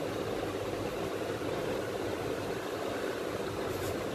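Steady machine noise running evenly, with a few faint light scrapes near the end.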